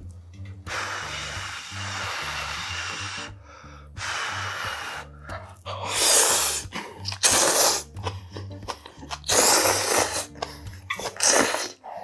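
A man blowing long breaths onto hot instant ramen noodles to cool them, then loud slurps of the noodles beginning about halfway through, with background music under it.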